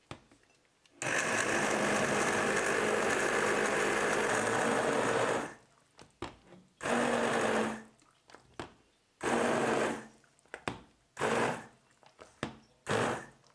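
Electric blender puréeing a pot of simmering mirabelle plums and sugar for jam: one long run of about four seconds, then four short bursts.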